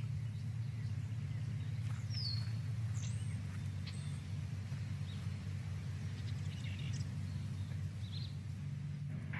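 Outdoor ambience: a low, steady hum with a few short, faint bird chirps above it.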